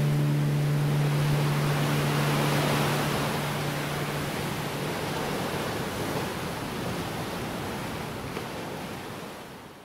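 Waves surging and breaking on a rocky shore, a steady rushing wash from a rough sea. A last guitar chord rings out underneath for the first few seconds and dies away. The sound fades out at the end.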